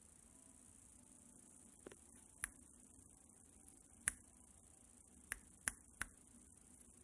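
Guinea pig biting and chewing crisp lettuce leaves: a handful of short, sharp crunches, the loudest about four seconds in and three in quick succession near the end.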